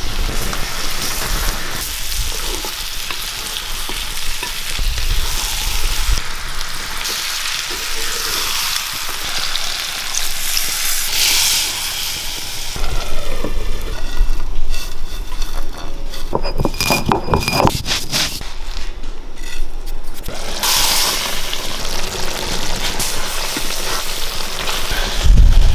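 Chicken pieces sizzling as they fry with onions and green chillies in a pan over a wood fire, stirred at times with a spatula. There is a spell of quick scraping strokes against the pan a little past halfway.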